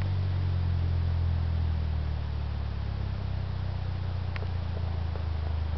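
An off-road vehicle's engine running steadily at low revs, a constant low hum, with a few faint ticks about four seconds in.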